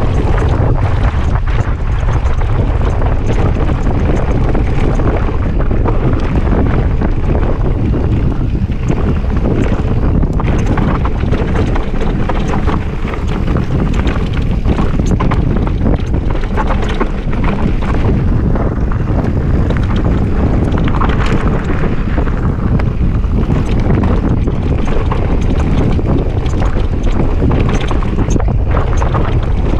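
Wind buffeting the microphone of a mountain bike riding fast down a dirt downhill trail, with the tyres rolling over dirt and stones and a constant patter of small knocks and rattles from the bike over the bumps.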